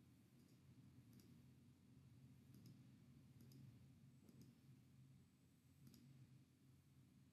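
Near silence with several faint computer mouse clicks spread out, some in quick pairs.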